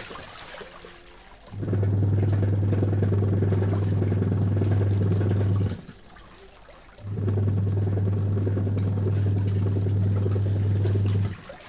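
Factory machine running in cycles: a loud steady low hum with rough mechanical clatter above it, which starts up about a second and a half in, runs for about four seconds, stops briefly, then runs again for about four seconds and stops near the end.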